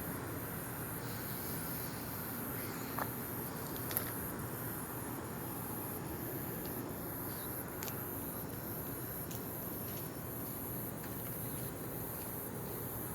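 Night insects trilling in a high, regularly pulsing chorus over a steady background hum, with two faint clicks about three and four seconds in.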